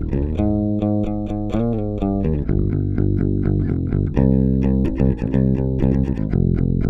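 Warwick five-string electric bass played fingerstyle. A few held notes come first, one sliding in pitch, then a steady run of quick plucked notes.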